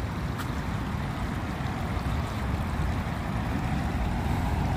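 Steady rushing of the Váh river's water over stones, with a deep rumble underneath.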